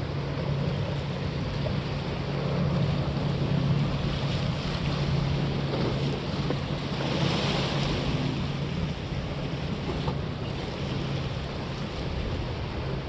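Sea waves washing, with wind buffeting the microphone and a steady low hum underneath; a wave's hiss swells about seven seconds in.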